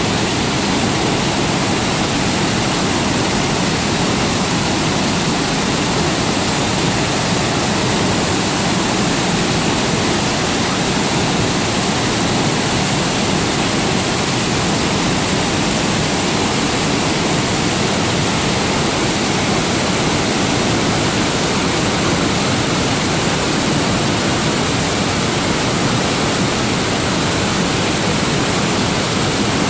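Burney Falls, a waterfall pouring into its plunge pool, making a steady, unbroken rush of falling water.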